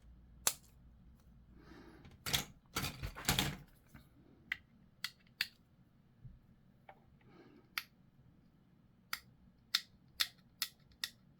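Hobby clippers snipping small plastic parts off a model kit's sprue, heard as sharp single clicks, with a cluster of snips and plastic rustling about two to three seconds in and a quick run of clicks near the end.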